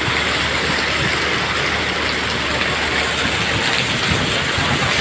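Heavy rain falling in a steady downpour, pattering on surfaces.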